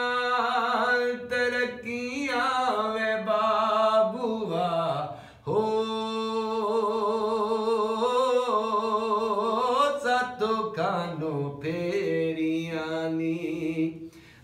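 A man singing a Punjabi folk song in long, wavering, drawn-out notes, with a short break about five seconds in. He keeps time with his hands on an upturned aluminium cooking pot played as a drum.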